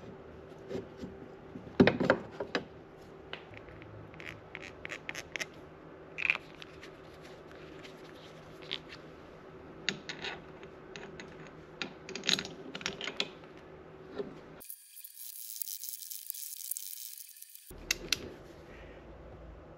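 Clicks and metallic taps of hand tools as a Brembo brake caliper is refitted over a brake rotor and its bolts are turned with a ratchet, with one louder knock about two seconds in.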